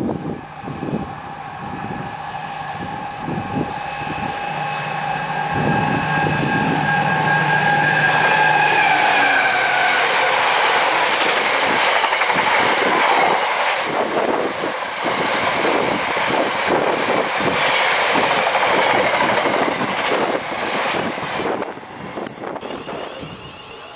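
A Class 70 diesel locomotive passing, its high whine dropping in pitch as it goes by about nine seconds in. A long train of hopper wagons follows, rolling past with a dense clatter of wheels on the rails, then dies away near the end.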